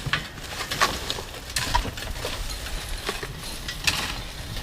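Dirt and gravel being scraped and crunched on a dirt road, in irregular short strokes over a low rumble.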